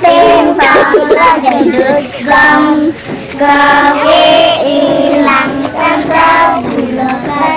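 A group of young children chanting a sing-song rhyme together in short, clipped syllables, the chant that goes with a finger-pointing counting-out game.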